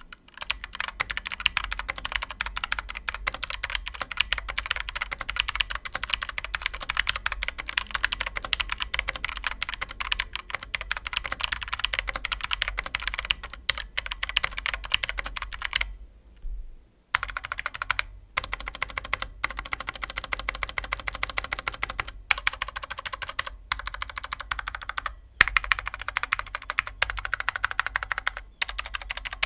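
Continuous fast typing on a Komic KG-KM870 mechanical keyboard with Outemu Red linear switches: a dense stream of keystroke clacks. It stops for about a second around sixteen seconds in and has a few short breaks later.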